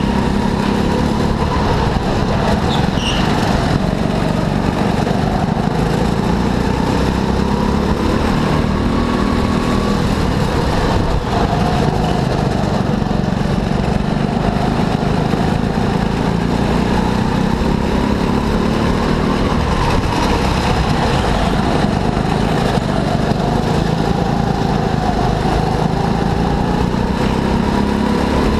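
Go-kart engine running continuously, its pitch rising and falling again and again as it revs up and drops back.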